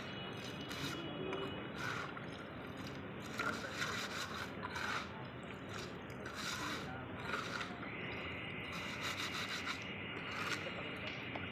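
Hand trowel scraping through and turning a pile of cement and gravel: repeated irregular gritty scrapes. A steady high tone joins about eight seconds in.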